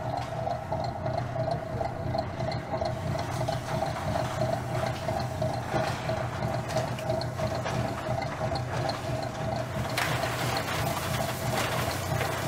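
Aloe leaf washing machine running steadily: a motor hum with a light regular ticking, as water jets spray the leaves. The spray hiss grows louder near the end.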